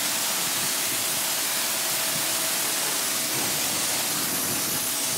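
Pressure washer (jet wash) spraying a tiled patio: a steady, loud hiss of the water jet hitting the paving, with a faint steady whine under it.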